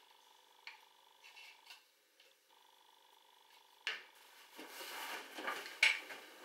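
Arrow shafts clicking and rattling against each other and the wooden tabletop as they are handled and laid down. A sharp click comes about four seconds in, then a busier clatter near the end, over a faint steady tone.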